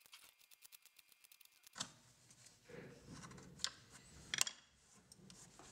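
Hand carving gouge cutting into the end grain of a very hard verawood block, each push popping out a small chip with a crisp click in quick succession. About two seconds in it gives way to handling of tool and wood on the bench, with a few sharper knocks.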